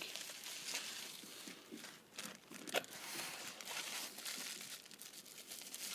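Packaging crinkling and rustling as a box of 3D-printed miniature parts is unpacked by hand, with a few small sharp clicks, the clearest a little under three seconds in.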